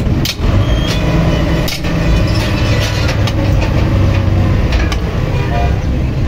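LiuGong forklift engine running steadily, with a few sharp knocks over it.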